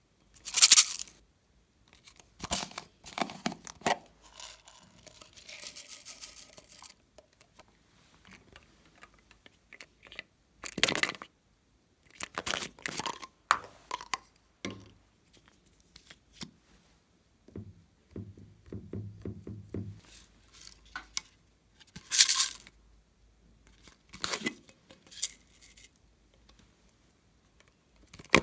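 Hands working plastic piping bags and slime: a series of separate crinkling, tearing and crunching handling sounds with quiet gaps between them, the sharpest about a second in, near the middle and about three quarters of the way through.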